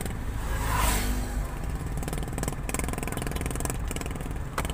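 Steady engine and tyre rumble of a moving car heard from inside the cabin, with an oncoming motorcycle passing by about a second in. A brief click near the end.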